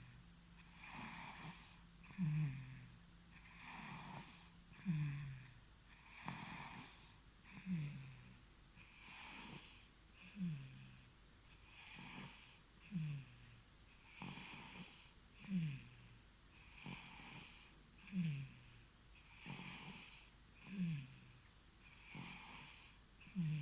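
A three-month-old baby snoring in sleep, in a regular rhythm of about one breath every two and a half seconds. Each breath is a breathy rush ending in a short snore that drops in pitch.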